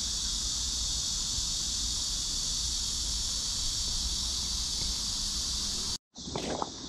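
A steady, high insect chorus over a low wind rumble on the microphone; it cuts off abruptly about six seconds in, and footsteps crunch on gravel near the end.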